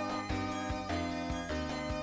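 Background music: a melody of short pitched notes over a pulsing bass line.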